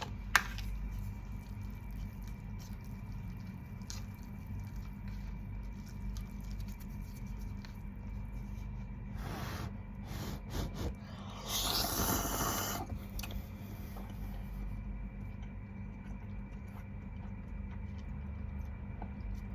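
Quiet eating sounds: faint clicks and mouth noises over a steady low hum, with a short hissing rustle about nine seconds in and a louder one lasting about a second and a half around twelve seconds in.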